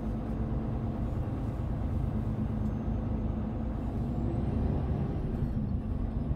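Semi truck's diesel engine running, heard from inside the cab as a steady low rumble.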